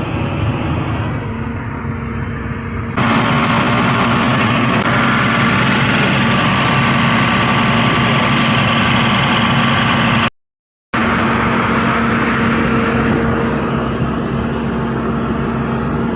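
Caterpillar 320D excavator's diesel engine running with a steady hum. About three seconds in it becomes suddenly louder and harsher and holds there, breaks off for about half a second a little past the middle, then carries on.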